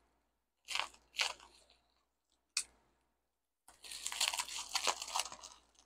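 Plastic bubble-wrap packaging being handled and opened: a few short crinkles, then a longer run of crackling and rustling from about four seconds in.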